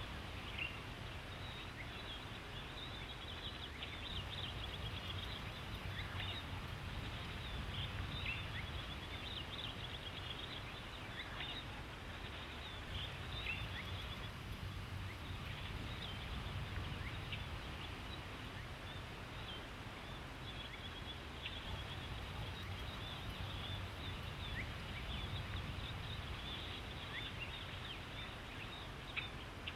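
Steady outdoor background noise with many faint, brief high chirps of small birds scattered through it.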